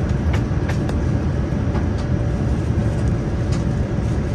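Steady low rumble of a Boeing 787-9 airliner in motion, with a few light knocks and rattles about a third of a second, three quarters of a second and three and a half seconds in.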